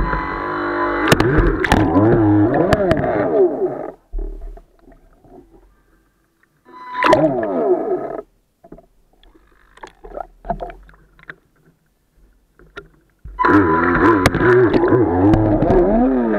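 Speed boat engine running hard, its pitch wavering up and down, heard in three stretches that start and stop abruptly with near silence between.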